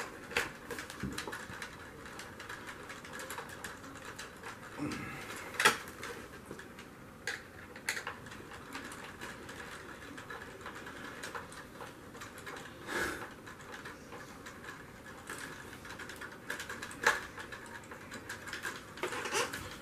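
Scattered light plastic clicks and knocks from the handle of a Bissell ProHeat 2X Revolution carpet cleaner being handled and fitted during assembly, with a few sharper knocks spaced several seconds apart.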